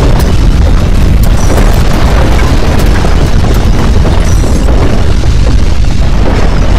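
Deep, loud, continuous earthquake rumble, with scattered short cracks and knocks.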